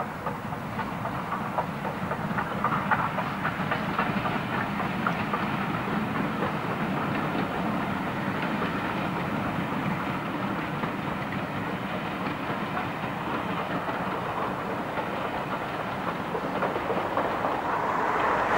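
Southern Railway Schools class 4-4-0 steam locomotive no. 925 'Cheltenham' hauling a passenger train past: steady chuffing from its three-cylinder engine mixed with the rattle of wheels on the rails. It grows louder over the first few seconds as it draws near, then holds level.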